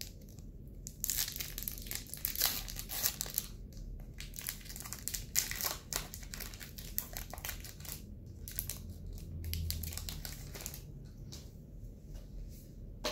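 Foil wrapper of a Pokémon Unified Minds booster pack crinkling and tearing as it is ripped open by hand: a dense run of sharp crackles that dies down near the end.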